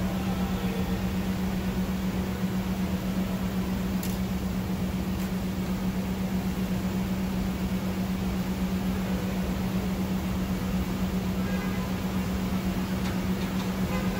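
Steady droning machine hum with one constant low tone over a faint hiss, and a couple of faint light ticks about four and five seconds in.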